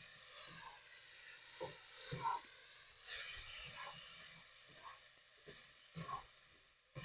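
Chopped tomato and vegetables with chili powder and cumin sizzling faintly in a skillet, with a few light knocks and scrapes spread through it.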